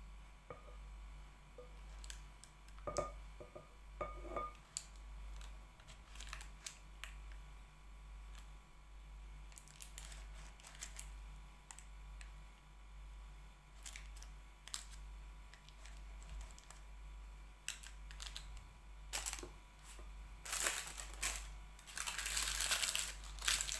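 Scattered light clicks and taps of a measuring cup against a mixing bowl and metal muffin tin as batter is scooped and poured into paper cases. Near the end, a paper muffin liner crinkles loudly as it is handled.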